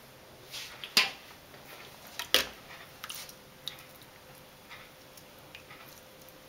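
Two sharp knocks, about one and two and a half seconds in, then faint soft squishing and light ticks as the charred skin is pulled off roasted tomatoes by hand.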